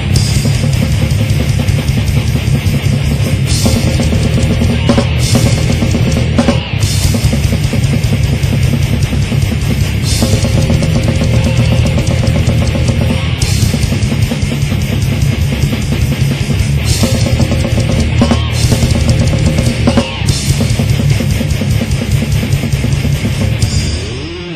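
Death metal music with loud, dense distorted guitars and drums, dropping in level just before the end.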